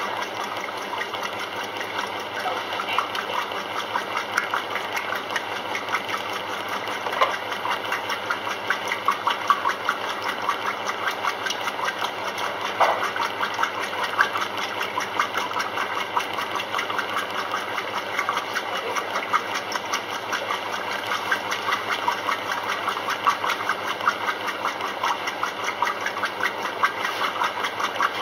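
Maytag commercial top-load washing machine running its wash cycle: a steady motor hum under a quick, even run of mechanical ticks.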